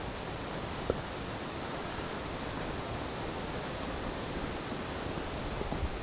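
Steady rush of a fast-flowing stream over rocks, with a single sharp click about a second in.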